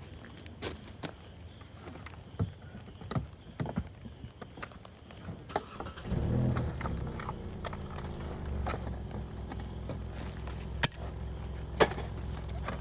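Scattered light clicks and knocks, then from about halfway a motor vehicle engine running with a steady low hum.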